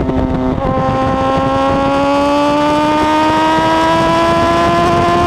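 Sport bike engine under acceleration: a brief break in the note about half a second in, then the engine pitch climbs steadily through the gear.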